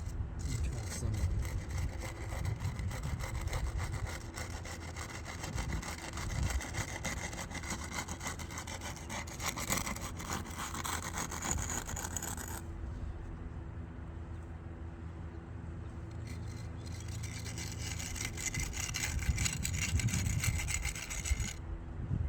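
Rapid, repeated scraping strokes of a hand tool working wet concrete into the cracks and holes of brickwork, in two runs with a quieter pause between them.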